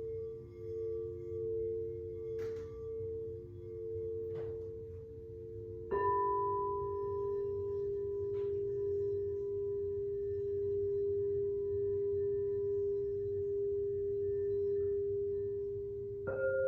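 Singing bowls ringing: two held tones waver at first, then a bowl is struck about six seconds in and rings on steadily, and a higher-pitched bowl is struck near the end.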